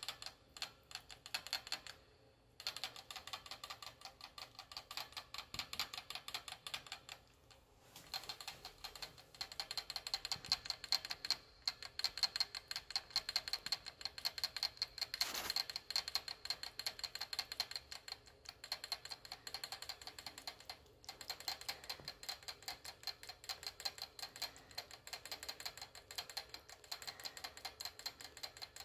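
Pet rat licking the metal sipper tube of a cage water bottle while drinking: rapid clicking of tongue on the metal spout that runs on steadily and breaks off briefly a few times.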